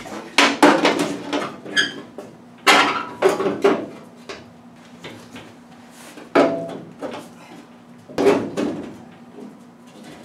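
Sheet-steel 1935 Ford truck firewall clanking and scraping against the car's body as it is twisted and forced out of the cowl, in four bursts of knocks and rattles.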